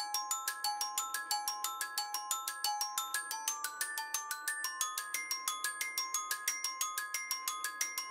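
A quick, evenly paced run of bright, ringing struck-metal notes like a glockenspiel, about six a second, the tune slowly climbing in pitch.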